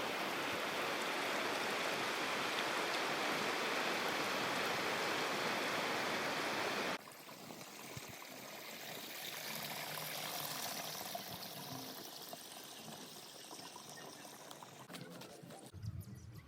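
River water rushing and splashing, a loud steady noise that cuts off suddenly about seven seconds in, leaving a much quieter outdoor background.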